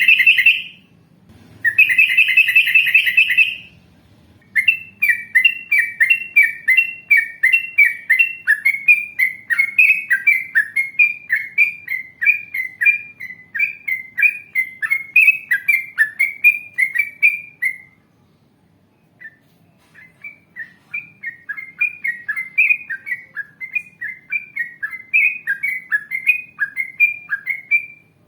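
Yellow-vented bulbul (trucuk) song: two short harsh, buzzy chatters, then a long run of quick, repeated downslurred notes, about two or three a second, that breaks off for a couple of seconds past the middle and starts again.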